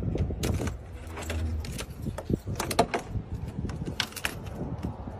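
Car keys jangling and a string of small clicks and knocks as a car door is unlocked and opened, over a low steady rumble.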